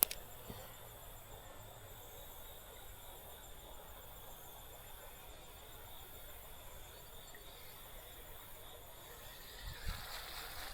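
Faint, steady chorus of insects, with a single sharp click at the very start.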